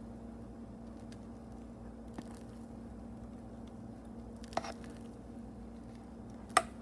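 Utensil sounds while a spatula spreads filling and topping in a pie crust, over a steady low hum, with three sharp clicks, the loudest near the end.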